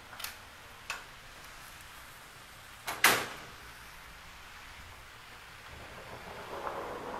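Sliding patio doors (a screen slider and a glass slider) being worked: two light clicks near the start, a loud knock about three seconds in, then a soft drawn-out sliding rumble near the end.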